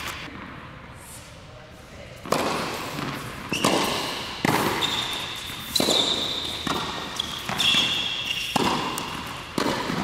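Tennis rally on an indoor hard court: sharp pops of the ball off racket strings and court, about one a second after a quiet first two seconds, echoing in the large hall. High squeaks of court shoes sound between the strokes.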